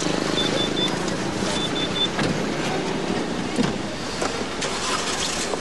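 A car door being opened and shut as someone gets into the car: clicks, a knock about three and a half seconds in, then a short rustle, over street noise.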